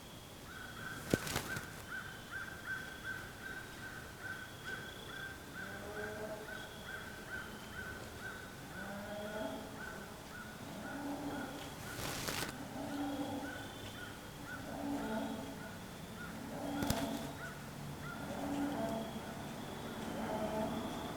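Cattle lowing, with calls about a second long repeated more and more often. A steady high chirp repeats about three times a second, and sharp clicks sound about a second in, midway and later on.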